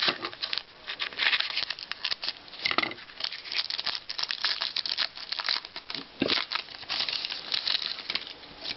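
Plastic wrapper of a 2011-12 Panini Certified hockey card pack crinkling as it is torn open by hand, a dense crackle of rustles and tearing.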